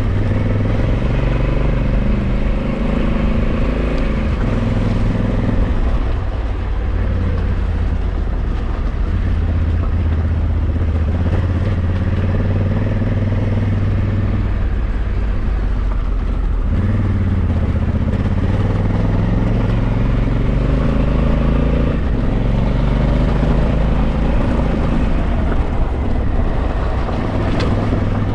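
Honda Africa Twin 1100's parallel-twin engine pulling the motorcycle uphill, its note rising and falling with the throttle, with dips about six and sixteen seconds in.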